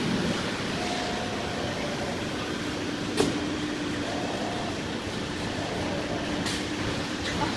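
PHILICAM 1325AD-8ATC automatic-tool-change CNC router running, its gantry and spindle head moving, with a steady machine noise and a low hum. A sharp click comes about three seconds in, and a short hiss-like burst about six and a half seconds in.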